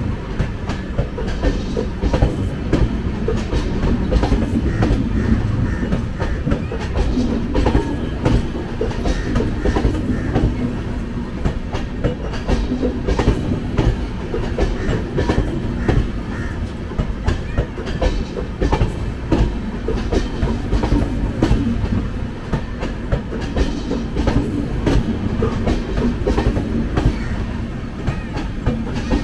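Two Indian Railways passenger trains running side by side at speed on adjacent tracks. Their wheels make a steady, loud rumble and rattle on the rails, with frequent clickety-clack knocks, heard from the open door of the moving coach.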